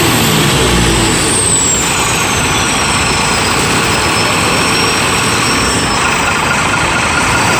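Iveco 450-horsepower diesel truck engine running after a rev in neutral, a deep rumble strongest about a second in, with a high whine that slowly falls in pitch and rises again near the end. It is being run to check the effect of a newly fitted fuel-saving device.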